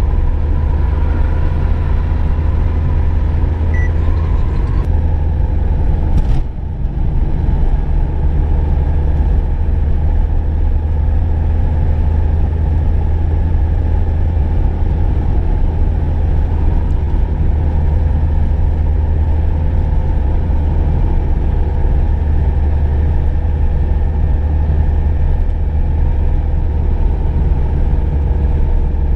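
Car being driven: a steady low engine and road rumble with a faint constant hum above it. About six seconds in there is a short click and a brief dip in level before the rumble carries on unchanged.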